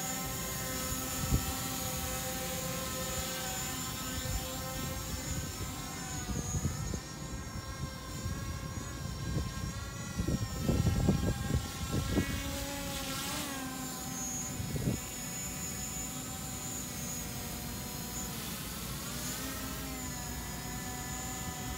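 DJI Mavic Pro quadcopter's propellers whining in flight, a steady hum of several tones whose pitch wavers a couple of times as the motors correct. Gusts of wind buffet the microphone about halfway through.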